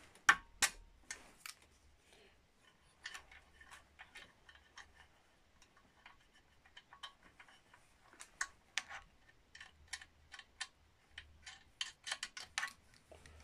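Irregular light metallic clicks and ticks of small M6 screws, a nut and washers being handled and threaded by hand on a suspension arm mounting, with a quick run of ratchet-spanner clicks near the end.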